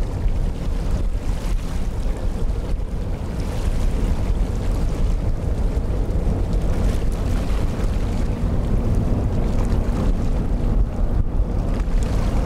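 Strong wind buffeting the microphone: a loud, gusting low rumble, with a faint steady hum underneath.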